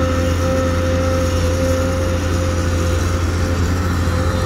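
Isuzu 6BG six-cylinder diesel engine of a new XCMG XE215C excavator running steadily as the machine swings and digs, a low drone with a steady high whine over it.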